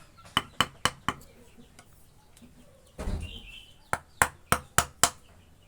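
Rapid sharp taps of a mallet driving a carving chisel into wood, about three to four strikes a second. Two runs are split by a pause, with a duller, heavier thump about three seconds in.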